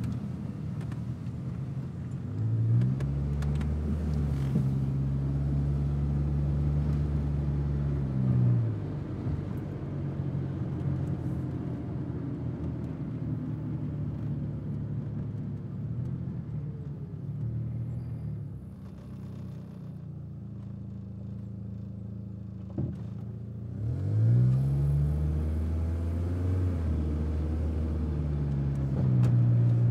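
Car engine and road noise while driving. The engine note rises as the car accelerates about two and a half seconds in and again near the end, running steadily between. There is a single click shortly before the second rise.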